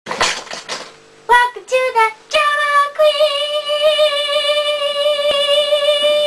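A girl singing a short title jingle: a few brief notes, then one long held high note, wavering slightly, from about two and a half seconds in.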